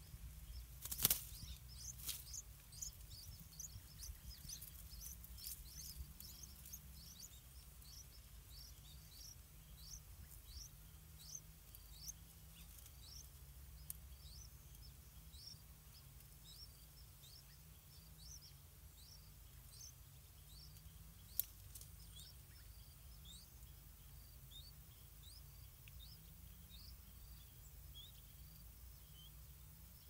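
Yellow-vented bulbul nestlings begging at the nest: a run of short, thin, high chirps, each rising in pitch, about two a second, thicker in the first half and thinning out later. Two sharp clicks come about a second in as the parent arrives at the nest.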